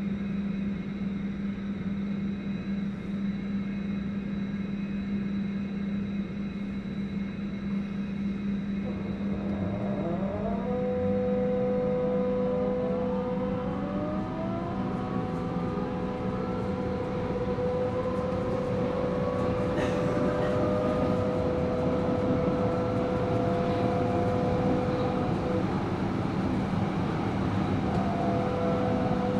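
Nuremberg U-Bahn DT1 train's three-phase traction drive: a steady low hum, then about nine seconds in the drive's whine sets in, climbing in several rising tones with a steady held tone among them as the train pulls away.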